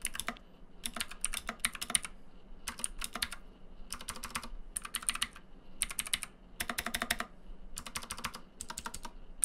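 Typing on a 1STPLAYER DK 5.0 mechanical keyboard with clicky Cherry MX Blue-style clone switches: bursts of rapid key clicks separated by short pauses.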